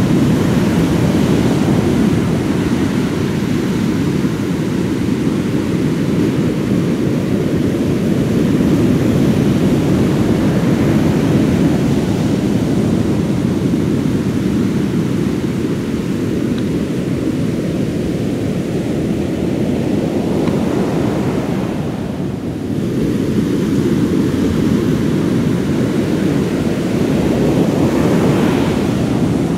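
Steady rumbling wind on the microphone mixed with sea surf, easing briefly about two-thirds of the way in.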